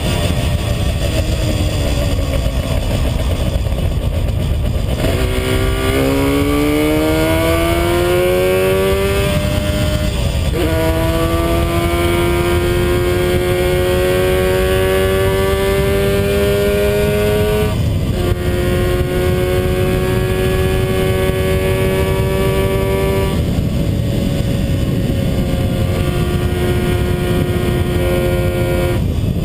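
1975 Yamaha RD350's two-stroke parallel-twin engine accelerating through the gears. Its pitch climbs, breaks and drops at upshifts about ten and eighteen seconds in, then holds steady and settles lower near the end as the throttle eases. A steady rush of wind and road noise runs underneath.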